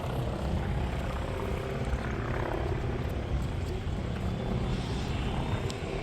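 Light propeller airplane's engine running in a steady drone as the plane takes off and climbs away.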